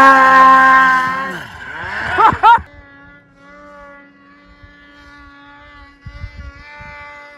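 Mountain snowmobile engine at high revs close by, its pitch falling after about a second, then a few quick rising-and-falling revs. It cuts suddenly to a much quieter snowmobile engine droning steadily in the distance.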